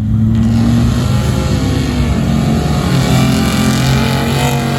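Drag-racing truck engine at full throttle on a sand drag strip, running loud and hard with its pitch shifting as it pulls down the track.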